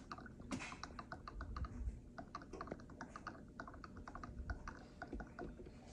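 Magenta ink draining from an upside-down refill bottle into the tank of an Epson ET-2850 EcoTank printer. It makes faint, irregular little clicks several times a second as air bubbles enter the bottle.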